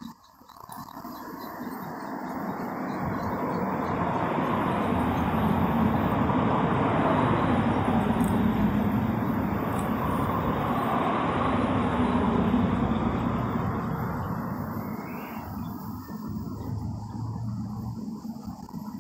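A road vehicle passing: a steady rushing noise that swells over the first few seconds, holds, then fades away near the end.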